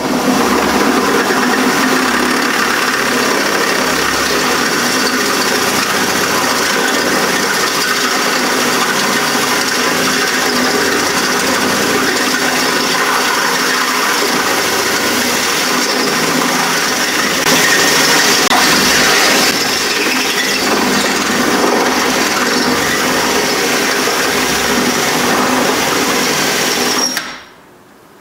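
Ryobi cordless drill running steadily with a 5/16-inch bit, drilling out the centre of a soft aluminium rivet in a steel door panel. It grows a little louder for a moment past the middle and cuts off near the end as the bit goes through.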